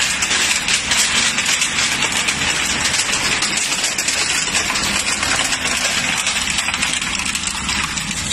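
Industrial crushing machine running steadily: a loud, even mechanical noise with dense crackling over a low hum.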